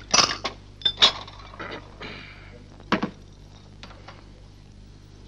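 Glassware and a spoon clinking at a counter while a drink is stirred in a glass: several sharp clinks in the first second, a soft scraping stir around two seconds in, and another clink about three seconds in.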